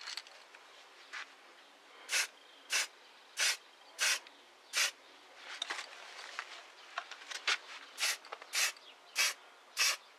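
Aerosol spray paint can hissing in short bursts as paint is sprayed on. There are five quick sprays about two seconds in, then four more near the end, with a few soft clicks and rattles between the two runs.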